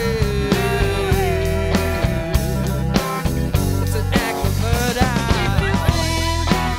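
Live rock music: electric guitar and electric bass playing a song with a steady pulse.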